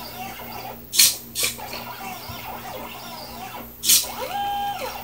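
Stepper motors of a 4xiDraw pen plotter whining in short gliding tones as the pen traces small curves. Sharp clicks come about a second in, again just after, and near four seconds. Near the end a steadier whine rises, holds and falls as the carriage makes a straight move.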